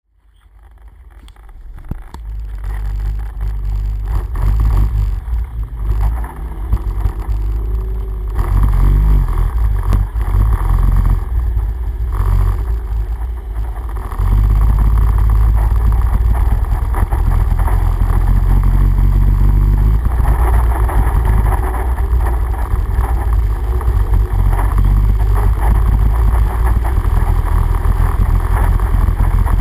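ATV engine running as the quad drives through shallow water, with water splashing under the wheels. The sound fades in over the first few seconds and gets louder about halfway through.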